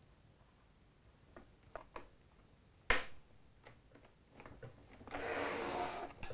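Small clicks and taps of a hex screwdriver working screws in an acrylic 3D-printer frame as bolts are tightened, with one sharp click about three seconds in. Near the end there is about a second of rasping, scraping noise.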